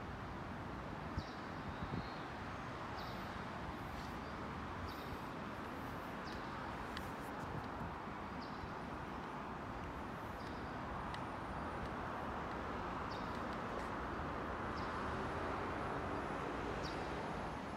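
Outdoor street ambience with a steady traffic rumble that swells a little in the second half. Short high chirps repeat about once a second throughout.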